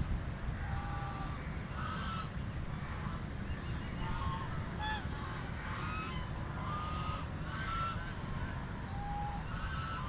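A group of domestic ducks calling, with short quacks coming a few times a second and sometimes overlapping, over a steady low rumble.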